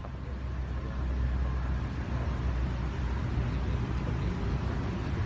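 Wind buffeting the microphone outdoors: a steady low rumble under an even hiss, a little louder after about a second.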